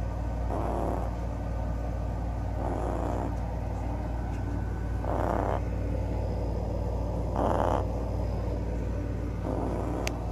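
Small dog snoring in its sleep, a breathy snore about every two and a half seconds, five in all, over a steady low hum. A brief sharp click comes near the end.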